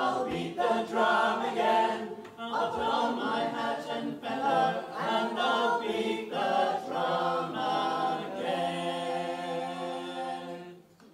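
Four voices singing unaccompanied in close harmony, an English folk song's closing line, ending on a long held chord that stops shortly before the end.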